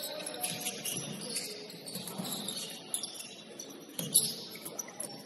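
Basketball game on an indoor court: sneakers squeaking in short high-pitched chirps, with a couple of sharp knocks of the ball about three and four seconds in, ringing in a large hall.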